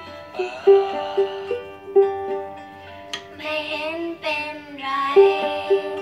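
Small blue ukulele played note by note, with a child singing along for a couple of seconds past the middle.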